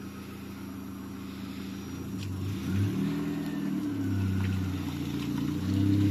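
Pickup truck engine idling, then revving as it pulls away about two seconds in, its pitch stepping up and growing louder towards the end.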